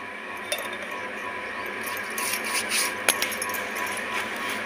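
Hands kneading soft rice-flour dough on a steel plate, with bangles clinking and a couple of light clicks against the metal plate, over a steady hiss.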